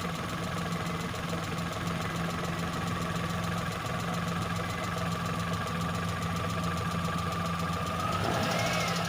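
Carbureted engine idling steadily on its freshly overhauled carburetor, being tested after reassembly. Its speed picks up slightly near the end.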